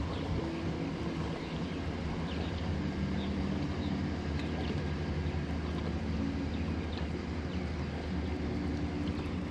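Electric bow-mount trolling motor running with a steady low hum, with faint short chirps above it.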